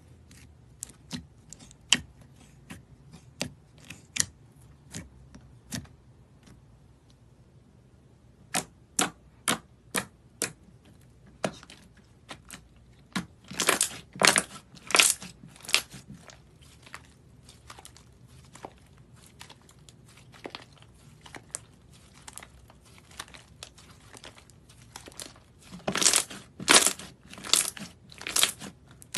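Slime being pressed, kneaded and stretched by hand, giving a run of sharp clicks and pops as trapped air bursts. The pops come in quick, louder clusters about halfway through and again near the end.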